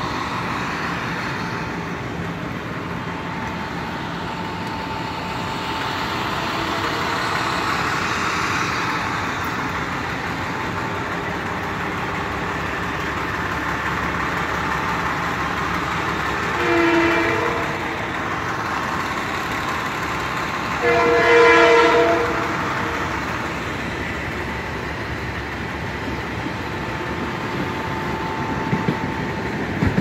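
Steady rumble of idling engines and street traffic, with two blasts of a horn sounding several pitches at once: a short blast, then a longer, louder one about four seconds later.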